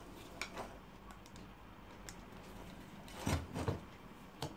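Screwdriver turning out the float-bowl screws of a small TK carburettor: faint metal clicks and scraping, with two louder clicks a little after three seconds in and another near the end.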